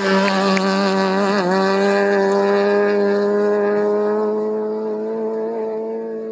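Rally car's engine held at high revs in one steady note, with a brief dip in pitch about a second and a half in, as it drives away on a gravel stage. At first there is a hiss of gravel spray under the tyres, and the engine note slowly fades near the end.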